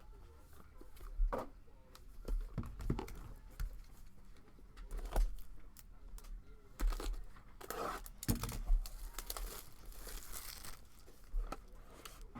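Plastic wrapping on a sealed trading card box being torn open and crinkled, in irregular rips and crackles with a busier stretch of crinkling near the end.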